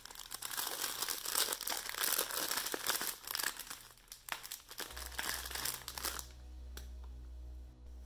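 Clear plastic bag of packeted diamond-painting drills crinkling and rustling as it is handled and rolled over. It stops about six seconds in, leaving a low hum.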